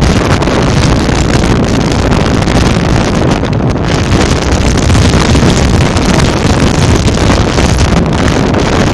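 Loud, steady wind rush buffeting the phone's microphone from a moving vehicle, with the vehicle's road noise underneath.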